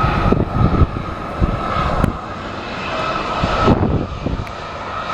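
Airplane engine running with a steady whine, under irregular low rumbles of wind buffeting the microphone.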